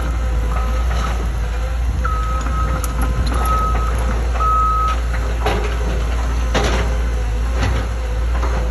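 Cat 316F tracked excavator's diesel engine running with a steady low rumble, while the machine gives several short high-pitched squeals in the first half and a few sharp metallic clanks after the middle.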